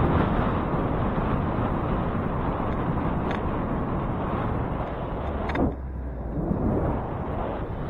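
Steady road and wind noise on a moving bicycle in city traffic, with passing vehicles. A single sharp knock about five and a half seconds in, after which the noise eases slightly.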